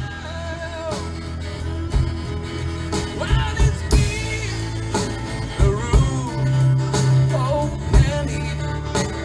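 Country band playing live: a drum beat about once a second, a strong bass line, and a melodic lead line gliding over it.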